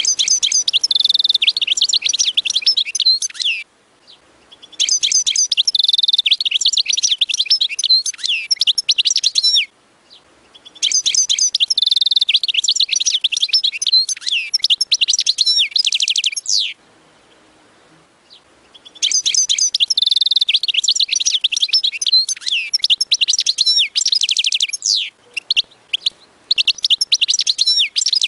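European goldfinch singing: long bouts of rapid, twittering, tinkling song, broken by short pauses of a second or two between phrases.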